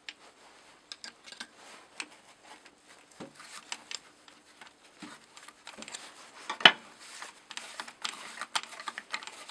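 Metal hand tool clicking and scraping against a cast-iron wood stove while working at its screws, in scattered light clinks with one sharp clank about two-thirds of the way through.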